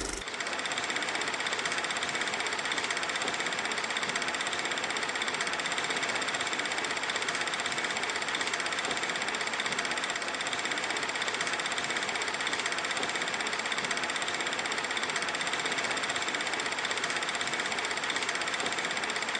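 Old film projector running: a steady, fast mechanical clatter with a hiss, unchanging throughout.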